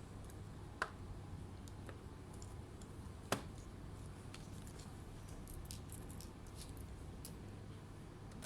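Small handling noises over a steady low hum: two sharp clicks, just under a second in and about three seconds in, then a scatter of faint light ticks.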